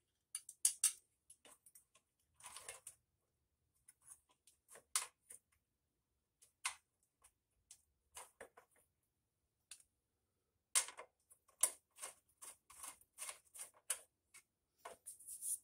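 Scattered small clicks and taps of a plastic recoil starter housing being worked into place and fastened onto a small engine's shroud by hand, with a quicker run of clicks in the last few seconds.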